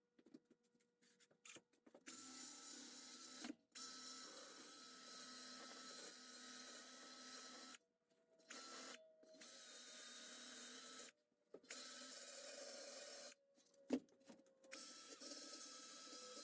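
Handheld power tool cleaning the seat-back metal, running in a series of runs of one to four seconds with short stops between. It makes a steady hiss with a faint whine. One sharp knock comes during a pause near the end.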